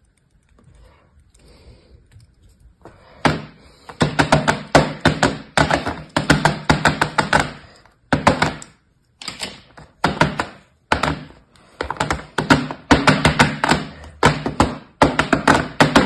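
Kinetic sand being crushed by hand and scraped with a knife against a plastic mould: faint scratching at first, then from about three seconds in a run of loud, crunchy bursts of fine crackles, each about a second long.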